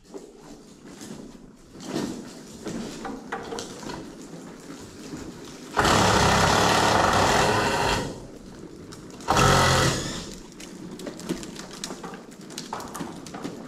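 Cordless impact driver running in two spells, one about two seconds long near the middle and a shorter one a few seconds later, driving fasteners through the rim joist board into the posts. Light knocks and clatter in between.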